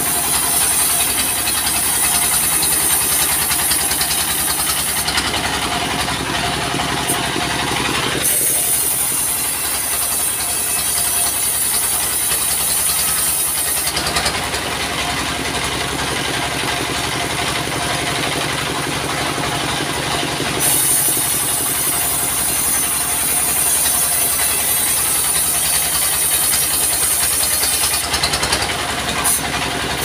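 Stationary diesel engine running steadily, powering a band sawmill, with a high hiss that cuts in and out several times.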